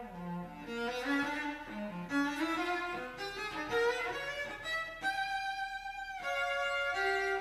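Solo cello playing a line of short notes that climbs into its high register, then holding one long high note.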